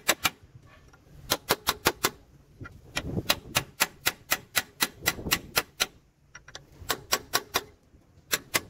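A hand hammer tapping quickly, metal on metal, on a tool held against a truck's drum-brake backing plate. The taps come in short runs of about five or six a second, with brief pauses between the runs.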